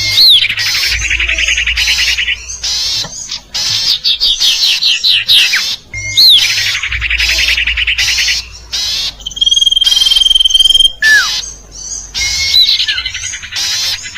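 Bird-lure recording of sirtu bird calls, played in a loop. A sharp down-slurred note leads into a rapid trill, followed by a run of quick falling notes; the sequence repeats about every six seconds. A long steady whistle comes about ten seconds in.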